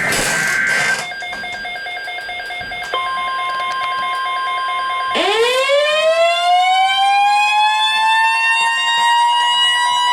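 Emergency alert tones: a short buzzing burst of alert header data, then a steady NOAA Weather Radio 1050 Hz warning tone starting about 3 seconds in. About 5 seconds in, a siren winds up in pitch over it and holds steady.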